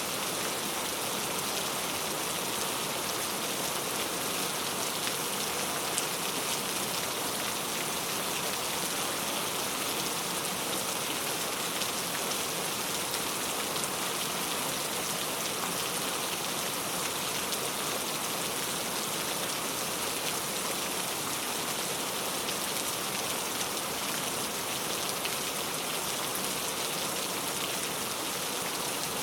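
Steady rain falling on a surface, an even hiss with scattered drop taps and no let-up.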